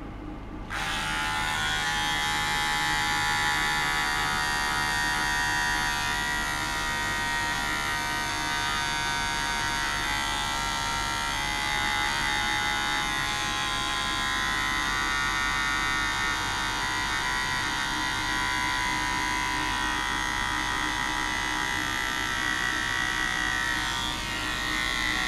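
A dense, high buzz made of many steady tones from an ultrasonic tester driving vibration into a test object. It switches on abruptly about a second in, wavers slightly, and cuts off just before the end. A low steady equipment hum runs underneath.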